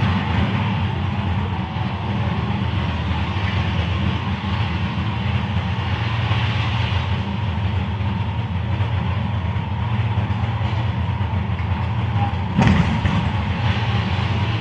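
A steady low mechanical rumble, with one sharp knock about twelve and a half seconds in.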